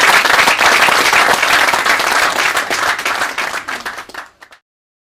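Audience applauding, dense clapping that thins out and is cut off about four and a half seconds in.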